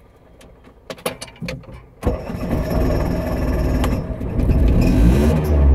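A few clicks, then about two seconds in the Piaggio Ape 50's small two-stroke engine starts and runs, getting louder near the end as it revs.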